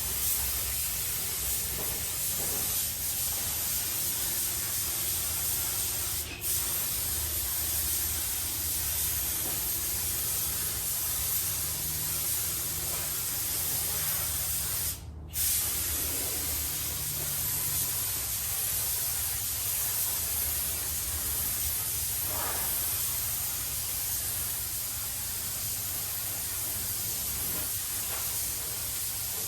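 Spray gun spraying clear coat in a steady hiss. The hiss breaks off briefly about six seconds in, and again for about half a second around fifteen seconds in, as the trigger is let go.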